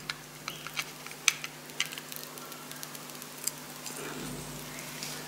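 A few faint light clicks and taps from locking pliers and a small steel part being handled on a steel bench, spaced about half a second to two seconds apart, over a steady low hum.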